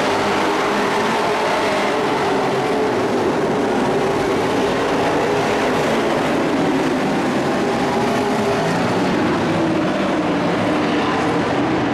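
Engines of several race trucks running on a dirt oval: a steady, loud blend of overlapping engine pitches that drift slightly up and down.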